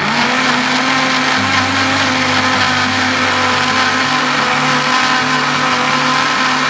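Electric blender motor running at high speed, blending a jarful of red strawberry drink. It spins up with a short rising whine at the start, holds a steady pitch, then stops abruptly at the end.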